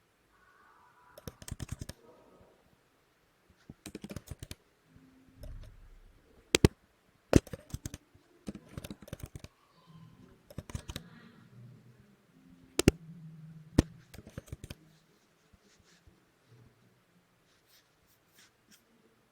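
Typing on a computer keyboard in short bursts of rapid keystrokes, with a few loud single sharp clicks in between; it mostly stops for the last few seconds.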